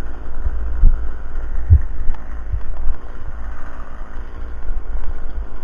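Wind buffeting the microphone: a low rumble with several gusty thumps, the strongest about two seconds in.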